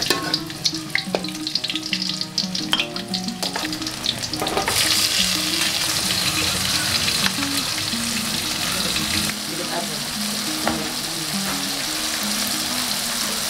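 Food frying in a hot pan with clinks of a utensil stirring; the sizzling swells loudly about a third of the way in and stays steady. A simple melody plays faintly underneath.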